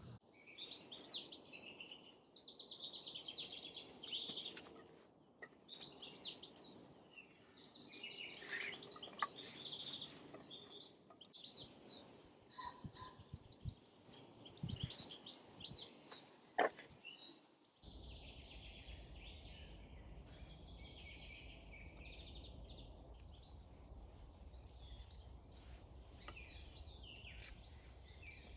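Several songbirds singing and chirping, with a few sharp knocks, the loudest about two-thirds of the way through. After the loudest knock a low steady rumble comes in underneath the birdsong.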